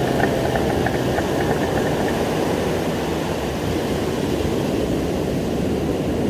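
Steady, loud rumble of breaking surf and wind on the phone's microphone, with faint rapid ticking during the first two seconds.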